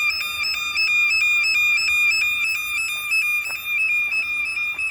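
Factory fire alarm sounding: a steady, high-pitched electronic tone that flutters evenly about four times a second.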